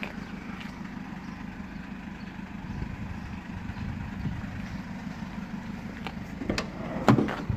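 Mercedes Sprinter 514 diesel engine idling with a steady low hum, then a few sharp clunks near the end.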